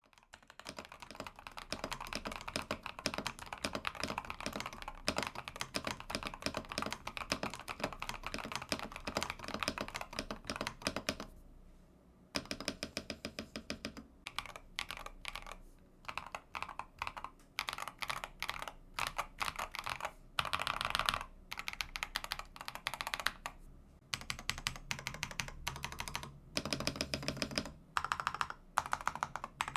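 Typing on an Akko 5075S mechanical keyboard, keys clacking rapidly. The typing is fast and unbroken for about the first eleven seconds, stops for about a second, then comes in shorter bursts with brief pauses between them.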